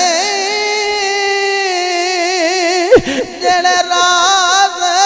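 A man singing devotional Punjabi verse in a drawn-out style, holding one long wavering note. About three seconds in, the note breaks with a quick dip in pitch, then a second long note is held.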